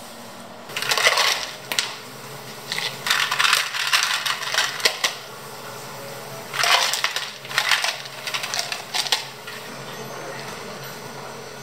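Ice cubes scooped and dropped into clear plastic cups, clattering in several short bursts that end about nine seconds in. The cubes scatter off a newly changed ice scoop.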